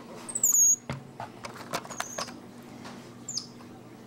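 Capuchin monkeys giving several short, very high squeaks that slide down in pitch, the loudest about half a second in. Light clicks and knocks come between the squeaks.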